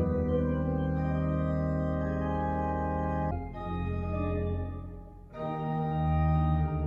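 Pipe organ playing slow, held chords. A bit past a third of the way in the chord breaks off and the sound thins and fades, then a full chord swells back in near two thirds of the way through.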